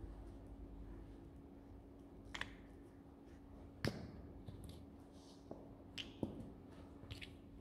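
Scattered sharp clicks and taps as a high-heeled platform shoe presses down on a plastic bottle cap on a terrazzo floor, the loudest snap about four seconds in and a few more around six seconds and near the end.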